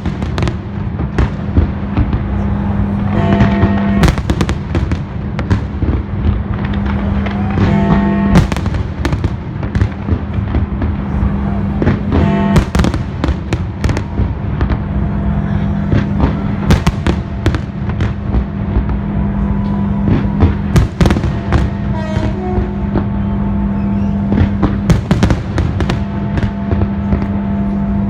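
Fireworks bursting in many sharp, irregular bangs, with the display's accompanying music playing underneath on a steady low held note.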